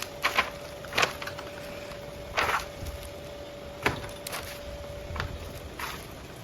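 Kitchen utensils knocking at a street-food stall: about eight irregular sharp knocks, one a longer scrape-like clatter, over a faint steady whine that stops near the end.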